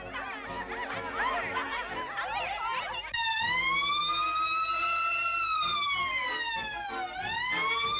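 Many small, high cartoon voices chattering over orchestral music. Then, about three seconds in, a police siren starts wailing: it rises slowly, falls, and begins rising again near the end, with the music going on underneath.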